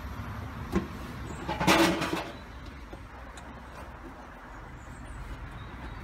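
A short sharp knock, then a louder clattering noise lasting under a second, over a steady low outdoor rumble.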